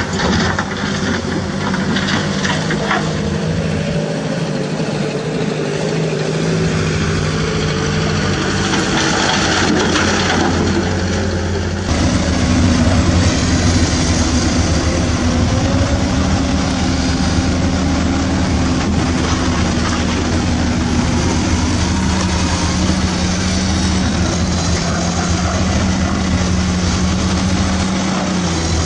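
Steady excavator engine sound running throughout, with the remote-control excavator working its arm. About twelve seconds in it gets louder and deeper, and the pitch shifts a little again later.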